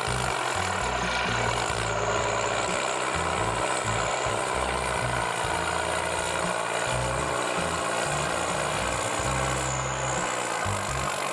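Engine of a heavy forestry machine running steadily.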